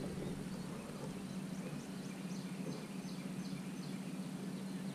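Steady low hum of a bow-mounted electric trolling motor easing the boat forward. In the middle, a bird gives a string of short, high, falling chirps.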